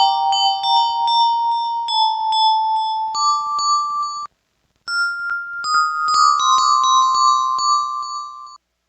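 Yamaha PSR-36 keyboard playing a bell-like melody through a Vivlex Time Maker delay pedal on its Pure delay setting, with quick, evenly spaced repeated note attacks. The playing breaks off for about half a second a little past four seconds in, then resumes and stops just before the end.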